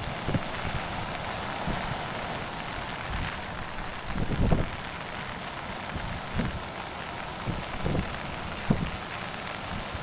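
Steady wash of heavy surf breaking on the beach, with gusts of wind buffeting the microphone several times; the strongest gust comes about four seconds in.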